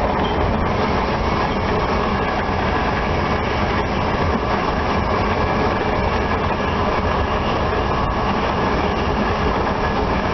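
Steady running noise inside a moving High Speed Train (InterCity 125) carriage: wheels rumbling on the rails, with a few faint clicks.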